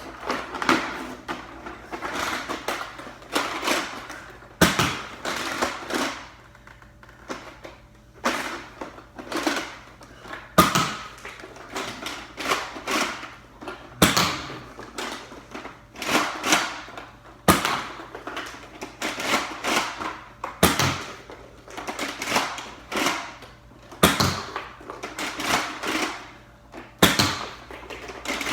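Nerf blaster fired over and over, each shot a sharp click or pop, about one every half second to second with a few short pauses.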